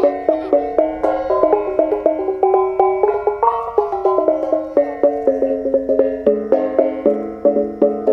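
A row of small bossed kettle gongs struck with padded beaters in a quick melodic run of ringing notes, several a second. The melody moves to lower gongs about six seconds in.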